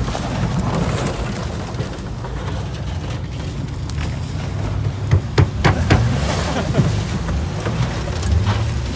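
Engines of old cars racing past on a dirt track, a steady low rumble, with a few sharp knocks about five to six seconds in.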